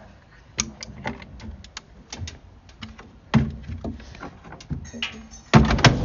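Clicks and knocks from a White Knight tumble dryer's door and controls being handled, with a heavier knock about three seconds in. Near the end comes a loud thud, and the dryer starts, its drum motor running with a steady low hum.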